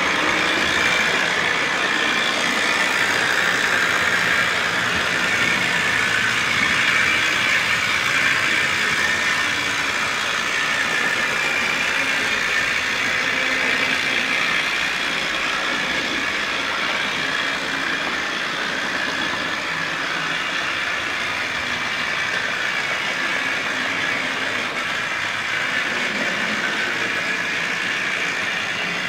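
Tri-ang OO-gauge model Britannia locomotive hauling a rake of Pullman coaches round the layout: a steady whirr of its small electric motor and wheels running on the rails, easing a little partway through.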